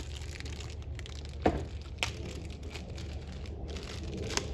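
A few short knocks and clinks of metal parts and tools being handled, the loudest about one and a half seconds in, another half a second later and one near the end, over a steady low hum.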